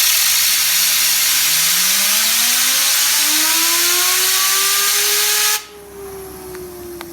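A loud steady hiss of blowing air spinning up a fidget spinner, whose whine climbs steadily in pitch as it speeds up. About five and a half seconds in the air cuts off suddenly, and the spinner whines on alone, its pitch starting to drop slowly as it coasts.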